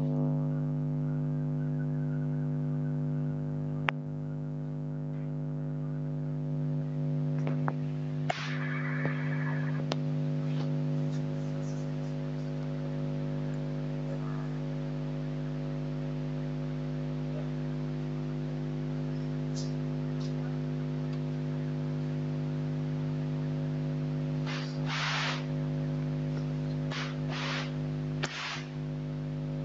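A steady drone of several held tones, with a few short hissy bursts about eight seconds in and again near the end.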